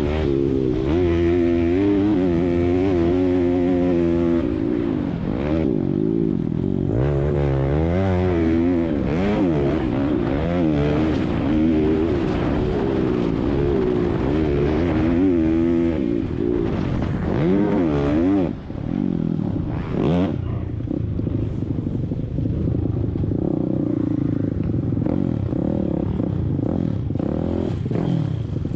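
Pit bike engines racing, the revs rising and falling again and again as the throttle is opened and closed, with a brief dip in the engine noise about two thirds of the way through.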